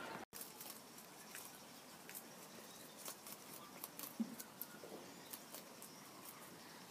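Two rabbits munching cabbage leaves and greens: faint, irregular crisp crunching clicks, with one brief louder low sound about four seconds in.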